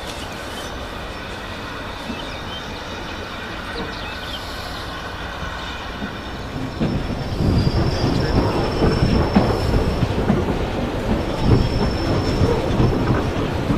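Train hauled by a South African Railways Class 24 steam locomotive rolling by on the rails. A steady rumble of wheels grows into a loud clatter about seven seconds in, with a thin, high wheel squeal coming and going over it.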